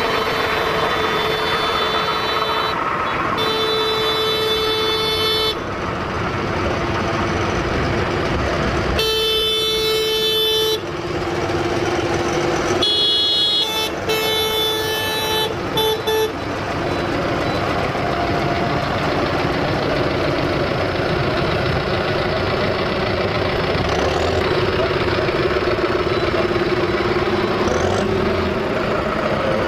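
Tractor horns honking over the steady running of several tractors' diesel engines as they pass. The horn sounds in three long blasts in the first ten seconds, then several short toots around the middle, after which only the engines are heard.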